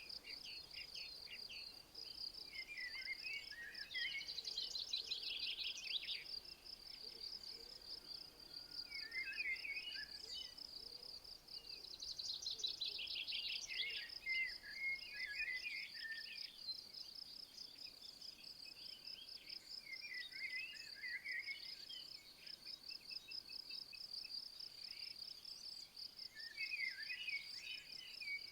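Outdoor nature ambience: a steady, high, rapidly pulsing trill carries on throughout, and birds sing short warbling phrases every few seconds over it.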